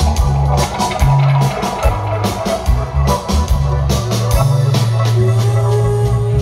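Live reggae band playing an instrumental passage with no vocals: a heavy bass line, drum kit and guitar. A sustained note comes in about five seconds in.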